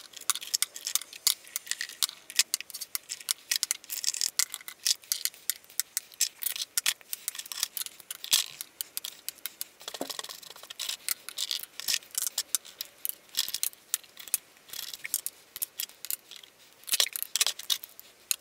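Lipstick cases clicking and tapping as they are lifted out of a drawer and set down one after another on a hard cabinet top, knocking against each other, with many quick clicks in an uneven rhythm.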